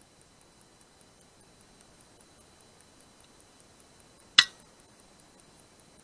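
A single shot from an FX Impact MKII .177 PCP air rifle about four and a half seconds in: one sharp crack that dies away quickly. Faint rapid high ticking runs underneath.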